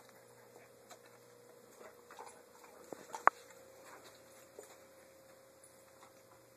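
Faint taps and ticks as a Doberman moves about, with one sharp click about three seconds in, over a faint steady hum.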